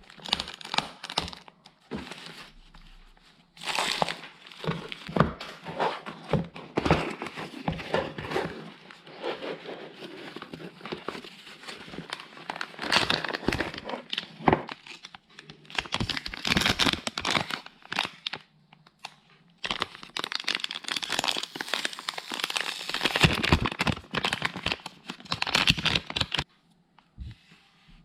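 Crinkling and tearing handling noise in repeated bursts of crackles, with short pauses between them, stopping shortly before the end.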